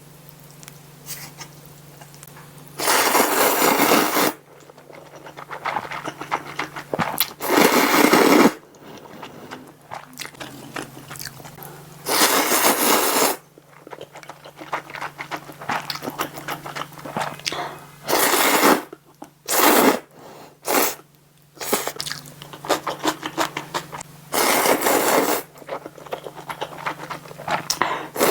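Close-miked eating of spicy ramen noodles: about six loud noodle slurps, each about a second long, with chewing between them, over a faint low hum.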